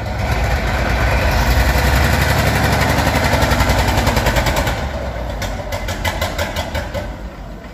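UD Nissan truck's V8 diesel engine running on its bare chassis with a rapid, even firing beat. It is loud at first and eases off after about four and a half seconds.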